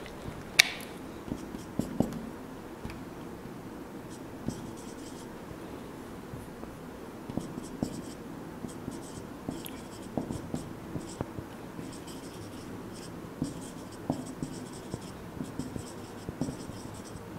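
Marker pen writing on a whiteboard: clusters of short scratchy strokes with light taps, pausing briefly between them.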